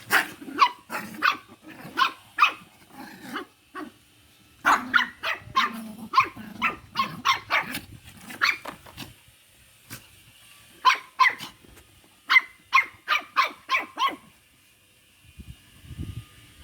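Small dog barking in quick, high-pitched yaps, in three bursts separated by short pauses.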